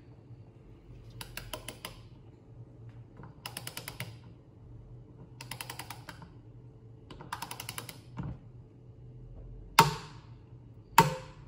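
Click-type torque wrench ratcheting in four short bursts of rapid clicks as it tightens a paint-sprayer pump's piston valve. Near the end come two sharp, loud clicks as the wrench breaks over at its 37 newton-metre setting.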